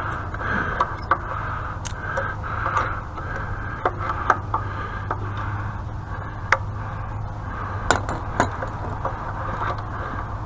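Hand tools working on the machine: a scattering of sharp, short metallic clicks and clinks at irregular intervals, over a steady low hum.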